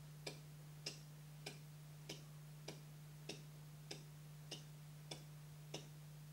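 Clock ticking: sharp, evenly spaced ticks about every 0.6 seconds, ten in all, stopping shortly before the end, over a faint steady hum.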